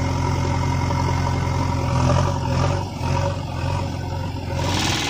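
A steady, even engine running sound, low-pitched like a heavy diesel idling. It changes abruptly near the end.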